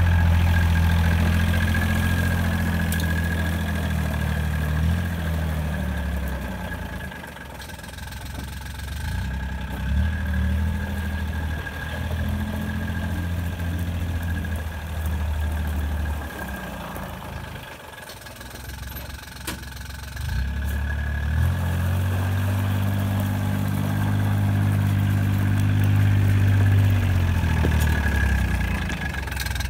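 John Deere Gator 6x4 utility vehicle's engine running under way. Its note rises and falls with the throttle, easing off twice, about seven and about seventeen seconds in, then picking up again and falling away near the end.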